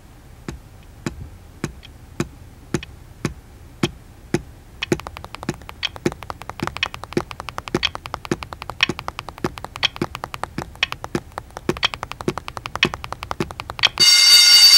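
Steady ticking, about two ticks a second, joined about five seconds in by faster, lighter tapping that keeps time with it. Near the end a loud ringing sound cuts in.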